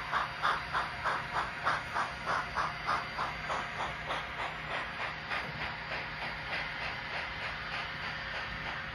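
Sound decoder of an N scale model Southern Pacific steam locomotive playing a steady rhythm of hissy exhaust chuffs, about two to three a second, that fade as the locomotive moves away.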